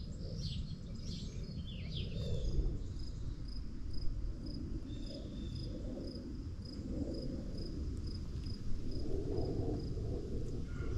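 Chickens clucking softly and intermittently while foraging. An insect chirps in a steady, evenly pulsed high tone through most of it, and a wild bird gives a few short falling chirps in the first two seconds.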